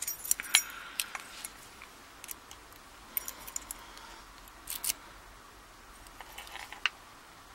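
Small metal padlock parts clicking and clinking as they are handled on the bench. There is a quick cluster of ticks at first, then a few single clicks with quiet stretches between.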